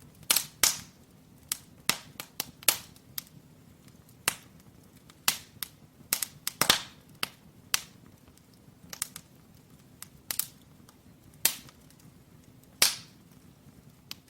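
Firewood crackling in a fireplace fire: irregular sharp pops, some with a short crackling tail, over a faint low steady rush.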